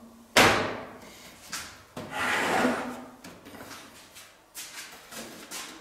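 Side panel of a PC tower case being put back on: a sharp clack as it meets the case, then a scraping rub as it slides into place, followed by a few light clicks.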